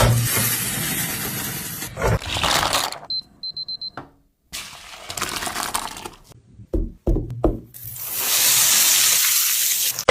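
Kitchen cooking sounds cut together: several stretches of loud hissing, a few sharp knocks, and a short run of high beeps.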